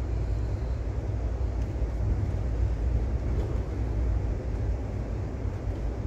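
Steady low rumble of an Amtrak passenger train running along the track, heard from inside the coach car.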